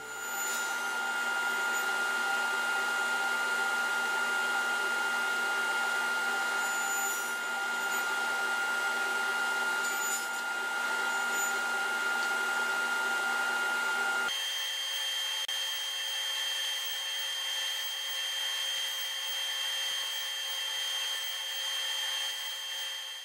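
Powermatic table saw running with a steady whine while a softwood board is fed over the blade in repeated passes to cut notches. About two-thirds of the way through, the whine jumps abruptly to a higher pitch.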